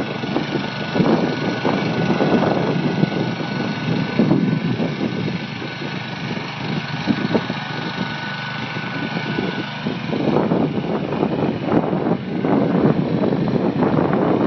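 Jacobsen GT14 hydrostatic garden tractor's engine running as the tractor is driven, a little louder in the last few seconds.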